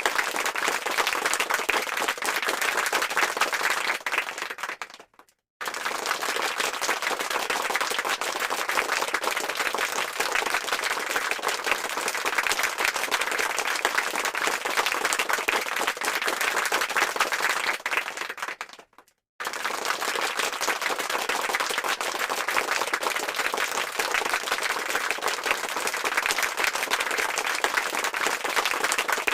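Stock applause sound effect: many hands clapping in a dense, continuous patter, cutting out briefly about five seconds in and again near twenty seconds as the clip loops and restarts.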